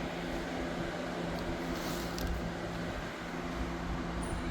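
A steady, low mechanical hum of room background, with a few faint light clicks and rustles in the middle.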